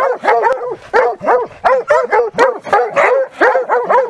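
Several coyote hounds barking hard and fast, about three to four barks a second with no break: bay barking at a coyote they hold cornered in a hole in a blowdown.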